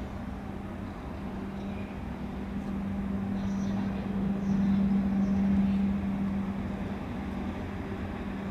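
Electric trains at a station giving a steady low hum that swells louder around the middle and then eases off, over a low rumble.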